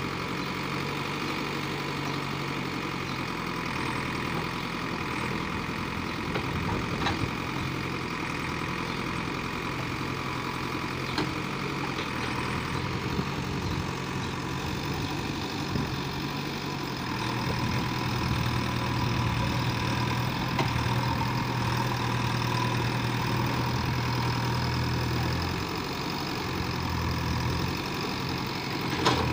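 JCB 3DX backhoe loader's diesel engine running as the backhoe arm digs and swings, its pitch shifting up and down as the load changes and growing louder for several seconds past the middle. A few brief knocks are heard.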